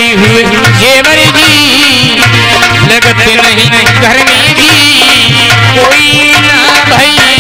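Instrumental interlude of Indian devotional folk music: a wavering electronic keyboard melody over a steady, fast hand-drum rhythm.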